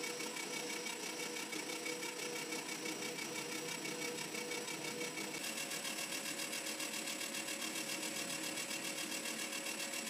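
Weisan WM210F400 benchtop metal lathe running, its motor and gear train giving a steady hum with a fast, even pulsing, while the tool turns an aluminium blank. The tone shifts slightly about five seconds in.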